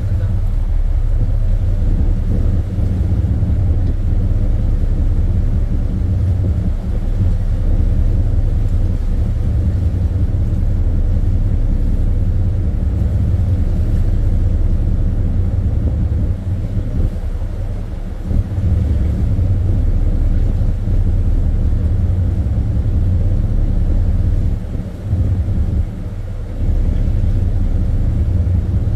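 Ship's machinery rumbling steadily, a deep continuous hum with a few brief dips.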